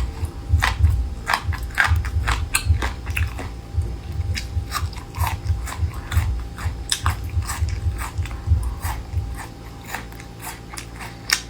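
Close-miked chewing of a crisp, crunchy food: a rapid run of sharp crunches with dull low thumps, thinning out about nine seconds in.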